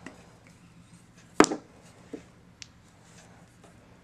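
One sharp click of a ball being struck on a mini pool table about a second and a half in, with a few faint ticks around it.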